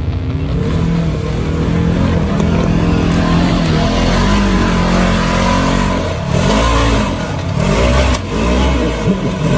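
Side-by-side UTV engine running under load as it crawls up a rock ledge. It revs up and down several times in the second half as the driver works the throttle over the rocks.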